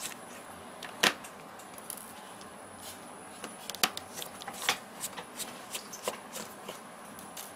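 Scattered light clicks and ticks as a precision screwdriver works tiny screws out of a mobile phone's plastic frame and metal shield plate, and the small parts are handled. The sharpest click comes about a second in.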